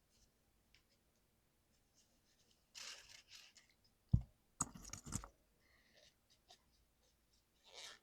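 Scattered scratching and scrubbing sounds from cleaning a dirty mechanical keyboard, with one sharp knock a little after four seconds in.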